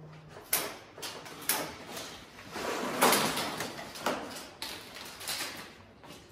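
A large cardboard shipping box being handled and opened: a few sharp knocks and scrapes, with a longer scraping noise about three seconds in.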